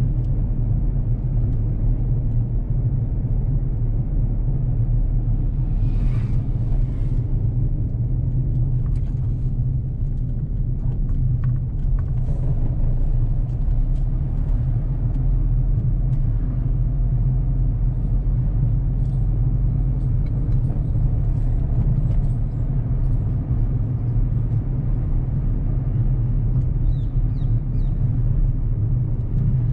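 Steady low rumble of a car driving slowly: engine and tyre noise with no sudden changes. A few faint brief higher sounds come through about six seconds in.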